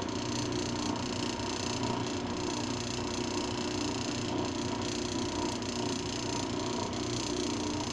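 Lapidary trim saw running steadily, an even motor hum with no change in pitch.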